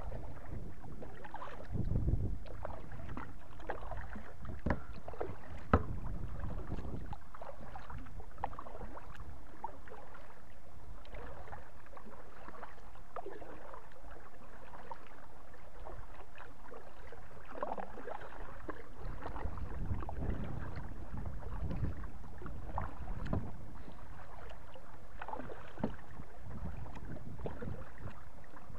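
Kayak paddle strokes dipping and splashing in calm water, irregular and repeated, with a single sharp knock about six seconds in.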